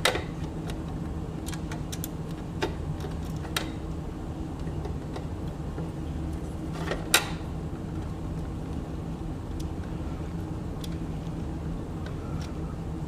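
Sewing machine's plastic back trim cover being handled and fitted, giving a few sharp plastic clicks and knocks, the loudest about seven seconds in, over a steady low background hum.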